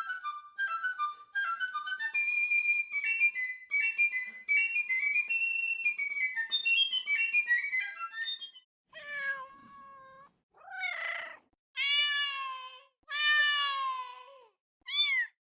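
A piccolo plays a quick, high-pitched melody of short notes for about eight seconds, then stops. A cat then meows five times, the last meow short and higher.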